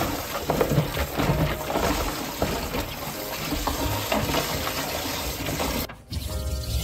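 Kitchen tap running and splashing into a plastic tray while hands stir and rinse bean sprouts and cabbage in it, with small knocks and rustles. It cuts off suddenly about six seconds in, and background music takes over.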